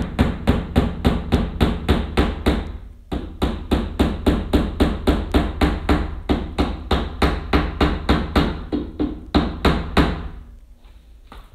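Hammer tapping thin panel nails into a plywood back panel: quick, light, even strikes about five a second, the nails going in easily. There is a short break about three seconds in, and the strikes stop about ten seconds in.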